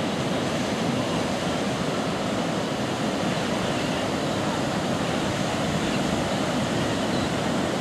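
Pacific Ocean surf breaking and washing up a sandy beach, a steady rushing roar with no pauses.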